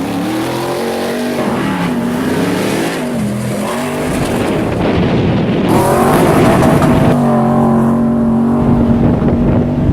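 Ford Raptor pickup truck engine revving up and down while driving off road. From about four seconds in a loud rush of wind and tyre noise joins it, and near the end the engine holds a steady high pitch.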